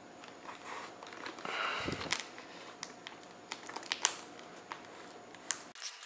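Clear plastic masking film crinkling and crackling as hands handle it and press it down over a model jet's fuselage, with a few sharp clicks and taps among the rustling.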